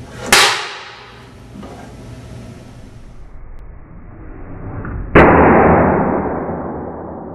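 A bare 30-gauge iron wire explodes as a 100 µF capacitor charged to 3 kV discharges through it: a sudden loud bang about five seconds in that fades away over about two seconds. A shorter sharp crack comes about a third of a second in.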